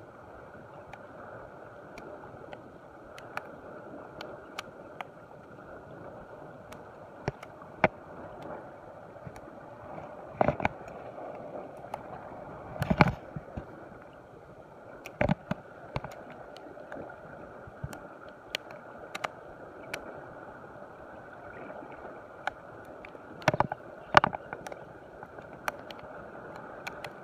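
Steady wash of sea and wind noise, with scattered sharp clicks and knocks from handling the spinning rod and reel during a cast and retrieve. Louder knocks come about ten, thirteen, fifteen and twenty-four seconds in.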